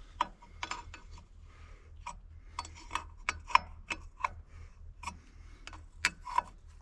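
Irregular sharp metallic clicks and clinks of hand tools on steel, about fifteen in a few seconds, as a part is bolted back onto an excavator after a hose-fitting repair.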